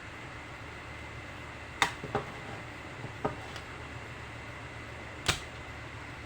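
A few sharp taps or clicks, loudest about two seconds in and again about five seconds in, over a steady low background hum.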